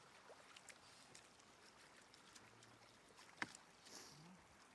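Faint splashing of hands groping for fish in shallow, muddy floodwater, with one sharp splash about three and a half seconds in.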